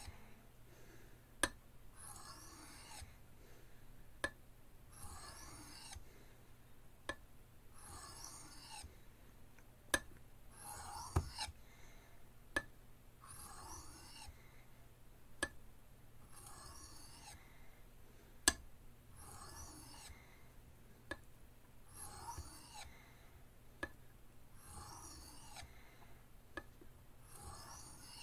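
Knife blade drawn across an oiled soft Arkansas sharpening stone with light pressure, refining the edge. Faint, even scraping strokes come about every two seconds, with a short sharp tick between most strokes.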